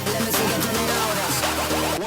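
Background electronic music track with heavy sustained bass, no voices.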